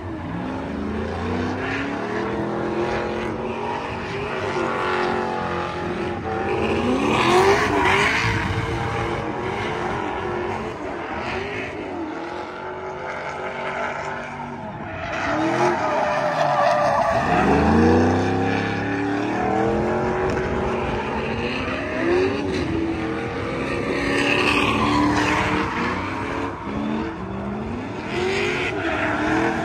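Car engine revving up and down again and again over steady tire squeal and skidding: a car doing burnouts or donuts.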